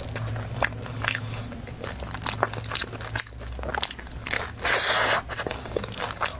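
Crisp, flaky pastry pie crackling as it is pulled apart by hand and bitten into, with one louder crunchy bite a little past the middle, then chewing.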